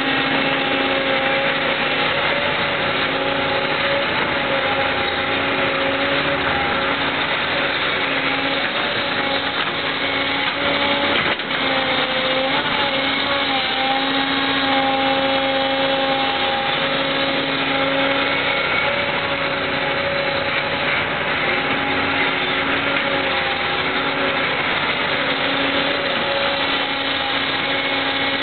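Excavator's diesel engine running steadily under load, with a whine whose pitch wavers and shifts as the machine digs.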